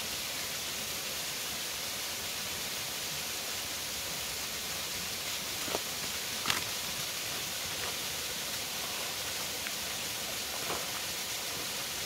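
Steady rush of a mountain waterfall, an even hiss of falling water, with a few faint clicks midway and near the end.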